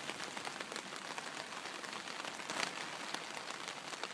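Steady rain falling, an even hiss with many individual drops ticking, one louder drop about two and a half seconds in.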